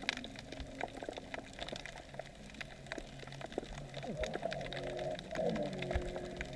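Underwater ambience heard through a camera housing: a dense, irregular crackle of sharp clicks, over a low droning hum that shifts in pitch between about four and six seconds in.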